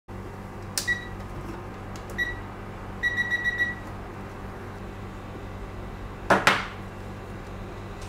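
Hot-air rework station beeping as its buttons are pressed: a single beep, another a second later, then a quick run of about five beeps, over a steady low hum. Two sharp knocks follow near the end, as the hot-air handpiece is handled.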